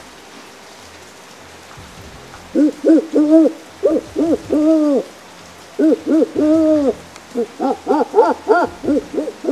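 A man calling like an owl with his voice, hand cupped at his mouth: loud hoots in three phrases, starting about two and a half seconds in, each ending in a longer drawn-out hoot, the last phrase quicker and choppier. A steady hiss like light rain lies underneath.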